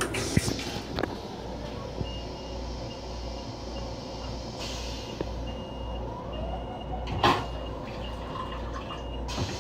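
M7 railcar toilet flushing, with a few clicks near the start and a short loud whoosh about seven seconds in. Under it runs the steady low rumble of the moving train.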